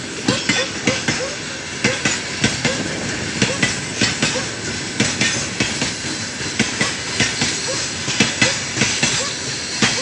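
Heavy freight train of open gondola wagons rolling past close by. Its wheels clatter over the rail joints in a steady clickety-clack, with the knocks coming in small groups as each pair of bogies crosses, and brief faint squeals.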